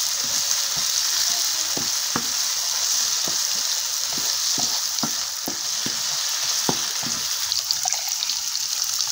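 Mushrooms frying in tomato sauce sizzle steadily in a nonstick frying pan while a wooden spatula stirs them, knocking and scraping against the pan in quick, irregular strokes. The stirring thins out near the end, leaving mostly the sizzle.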